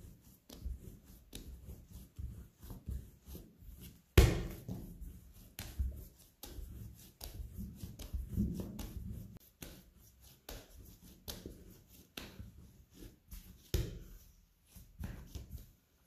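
Hands kneading soft bread dough on a stainless steel work surface: irregular soft slaps, presses and knocks of the dough against the steel. A louder thump comes about four seconds in and another near the end.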